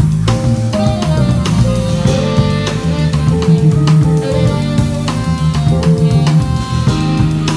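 Live band playing a funky jazz/R&B groove: drum kit hits over a busy electric bass line, with held chords above.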